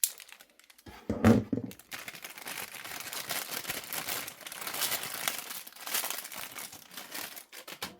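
Plastic packaging crinkling and rustling steadily as a new vacuum filter is pulled out of its wrapping, with a sharp click at the start and a brief low voice sound about a second in.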